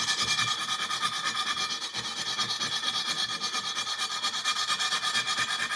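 Hand file rasping quickly back and forth across the cut end of a roll-cage tube, several strokes a second, with a steady metallic ringing underneath: deburring the cut so it will weld cleanly.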